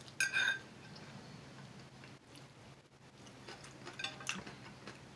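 Metal fork clinking against a plate: a bright ringing clink about a quarter second in, then a few lighter clinks near the four-second mark.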